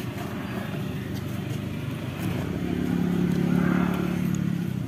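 Roadside traffic hum, with a motor vehicle's engine passing close by: it grows louder from about halfway through and fades again near the end.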